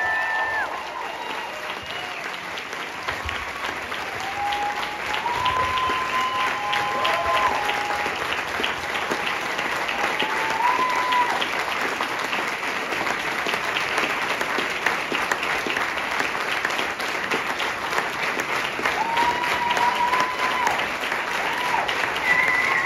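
An audience clapping steadily, with a few voices calling out over the applause now and then. A held note of music ends just as the clapping begins.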